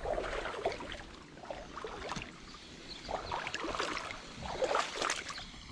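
Creek water sloshing and splashing in irregular bursts, as of legs wading through a shallow pool.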